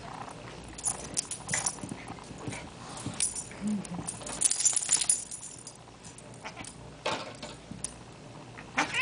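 A small dog and a cat scuffling on carpet: irregular rustling, light clicks and jingling, busiest about four to five seconds in, then quieter.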